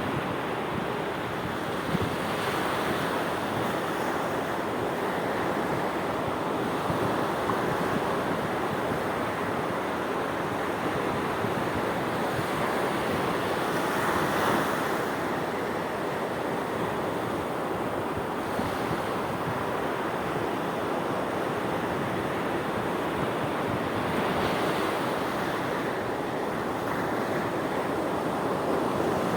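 Sea waves washing in as a continuous surf, swelling louder every few seconds, most of all around the middle.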